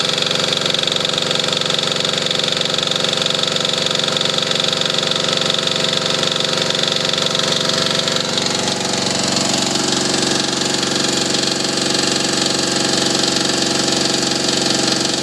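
Lister Petter AC1 single-cylinder air-cooled diesel engine running steadily, the sound shifting a little about halfway in. It runs like new now that its stuck injection pump has been freed.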